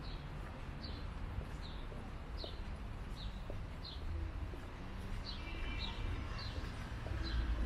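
A bird giving short, high chirps that fall in pitch, over and over, a little more than one a second, with a brief pause midway. Underneath is a steady low rumble of street traffic.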